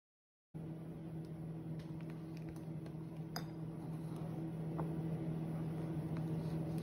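A steady low electrical hum, like a kitchen appliance running, with a few faint light clicks and taps as groceries on the counter are handled. It starts abruptly about half a second in.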